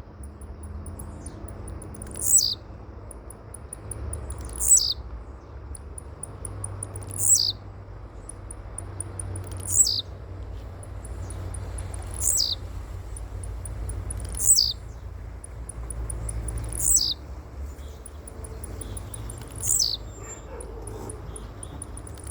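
A bird repeating a sharp, high whistle that drops in pitch, eight times at steady intervals of about two and a half seconds, with a fast high ticking between the calls over a steady low rumble.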